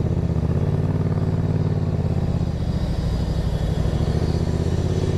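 Motorcycle engine running steadily at low revs, its pitch holding level as the bike rolls slowly.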